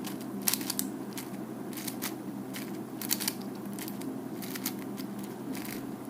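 4x4 speedcube being turned, its layers snapping in quick irregular clusters of sharp clicks while an algorithm is executed, over a steady low background hum.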